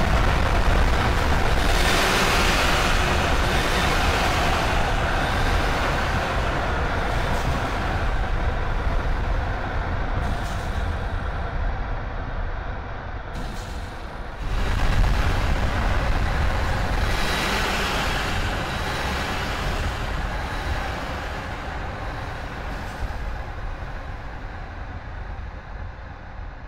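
Harsh power-noise music: a dense wall of static with a heavy low rumble. It thins out a little past the middle, then surges back suddenly and slowly fades toward the end.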